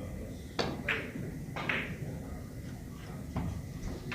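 Billiard balls clicking: a few sharp knocks of cue on ball and ball on ball, each with a short ring, one within the first second, another soon after, and a fainter one later, over a steady low room hum.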